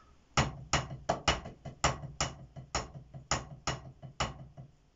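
Drumsticks playing an accented sticking pattern across two practice pads that give two different sounds, like snare and tom: a quick run of strokes, the accented ones clearly louder than the soft ones, stopping about four seconds in.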